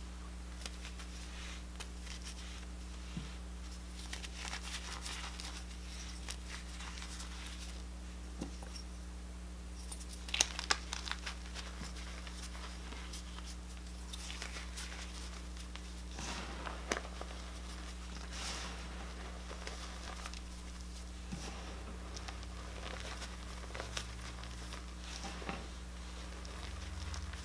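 Small pieces of reformed gym chalk crushed and rubbed between fingers in a heap of chalk powder: soft, crackly crunching and crumbling that comes and goes, with a louder cluster of crunches about ten seconds in. A faint steady low hum runs underneath.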